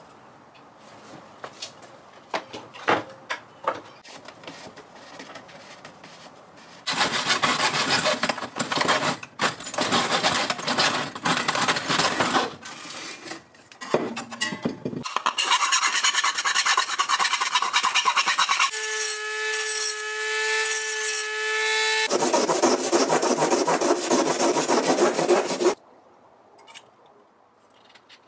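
Hacksaw cutting through a stainless steel water bottle held in a miter box: rapid back-and-forth rasping strokes that start about seven seconds in, after a few light handling clicks, and stop a couple of seconds before the end. A steady whine sounds for a few seconds partway through the cutting.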